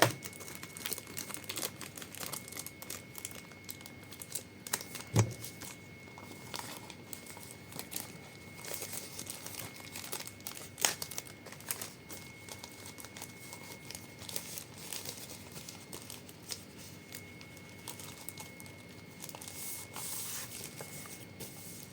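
A blind-bag toy pack being pulled and torn open by hand, its wrapper crinkling and crackling, with a couple of sharper knocks about five and eleven seconds in.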